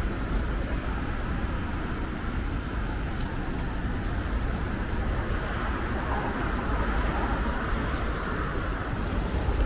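Busy city street ambience: a steady wash of traffic hum and indistinct crowd noise, with no single sound standing out.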